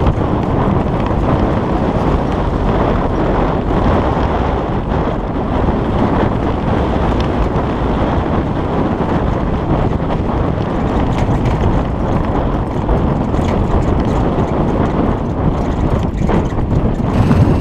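Steady, loud rumble of tyres on a rough gravel road mixed with wind noise, from a Peugeot 301 car driving along.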